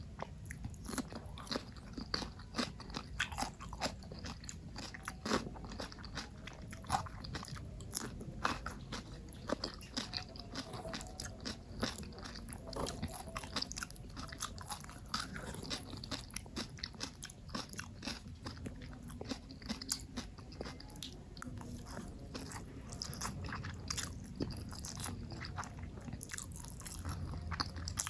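A person eating close to the microphone: steady chewing and biting with many irregular crisp crunches and wet mouth clicks.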